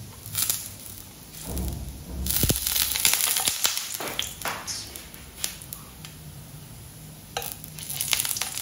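Sausages frying in shallow hot oil in a non-stick pan, sizzling and crackling, with a louder stretch of spitting and popping from about two to four seconds in, the sound of water meeting the hot oil. Near the end a few sharp taps and scrapes as a metal spatula turns the sausages.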